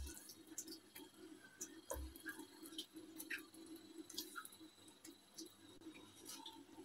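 Near silence with faint scattered ticks and soft scrapes of a spoon scooping idli batter from a plastic bowl into an aluminium idli stand, over a faint steady hum.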